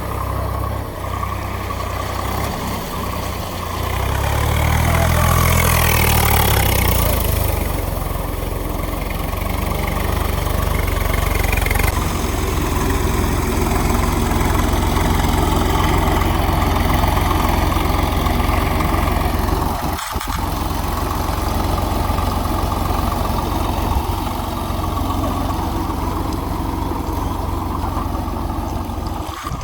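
Heavy diesel engine running steadily, with a rev that rises and falls back about five seconds in. The sound cuts out very briefly about twenty seconds in.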